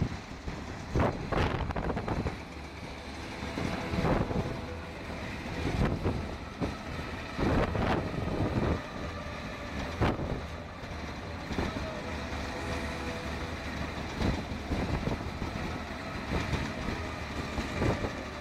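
Heavy construction machine's engine running steadily, with wind buffeting the microphone and several brief knocks through it.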